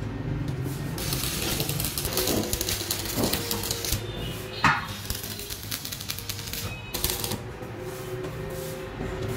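Stick arc welding on a steel trolley wheel hub: the electrode arc crackling fast and irregularly in two spells with a lull between them, and a sharp clack a little under five seconds in.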